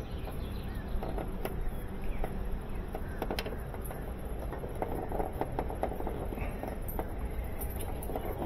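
Close handling noise of a power cord being worked by hand at a washing machine's control console: scattered small clicks and taps of cord and plastic over a steady low rumble.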